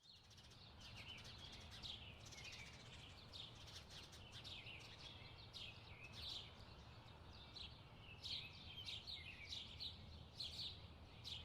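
Faint birds chirping in many short, quick chirps that grow busier about two-thirds of the way in, over a low steady hum.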